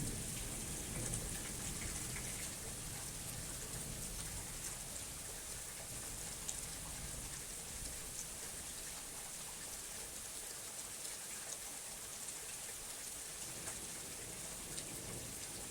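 Steady rain falling: an even hiss flecked with the patter of individual drops.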